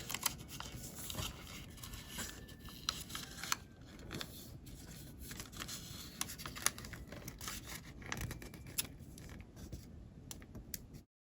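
Square colored origami paper being folded and creased by hand: irregular rustling, crinkling and sharp creasing clicks, cutting off abruptly near the end.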